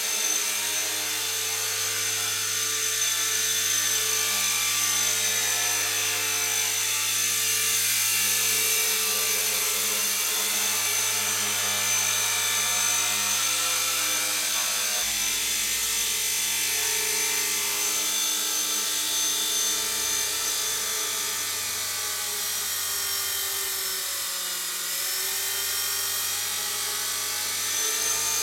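Align T-Rex 250 micro electric RC helicopter flying: a steady, high-pitched whine from its electric motor and gears, with the whirr of the rotor. The pitch dips briefly near the end and comes back up.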